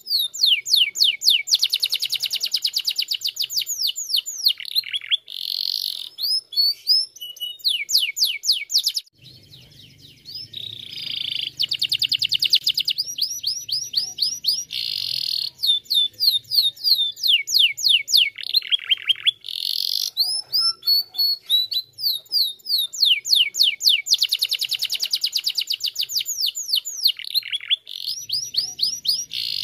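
Domestic canary singing a long, fast song of rapidly repeated notes, dense trills and quick downward-sweeping whistles, with a short pause about nine seconds in.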